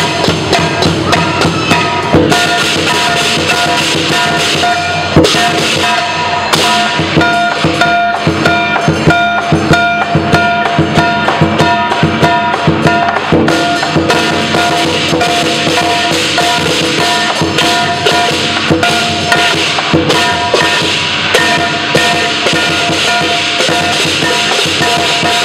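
Lion dance percussion: a drum beaten in fast, dense strokes with cymbals ringing over it, loud and unbroken.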